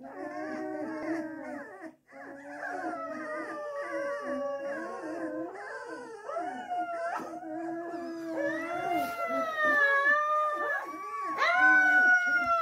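A litter of Springador (springer spaniel × Labrador) puppies howling together: several high, wavering cries overlap and slide up and down in pitch, growing louder in the last few seconds.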